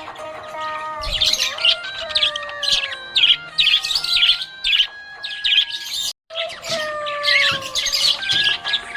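Budgerigars chirping and warbling in quick clusters of high notes, broken by a brief silence about six seconds in.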